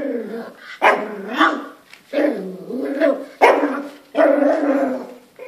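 Small dog barking repeatedly: about five drawn-out barks, roughly one a second, each starting sharply and tailing off.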